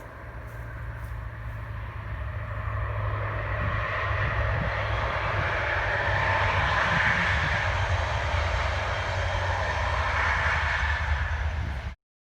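Diesel locomotive engine running with a low hum and a broad roar that grows louder over the first few seconds, holds steady, then cuts off abruptly near the end.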